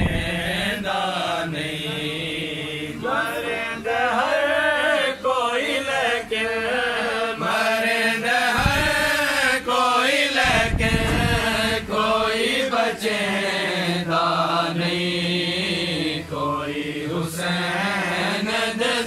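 Men's voices chanting a drawn-out, melodic recitation in praise and mourning of Hussain, a noha-style chant, with long wavering held notes.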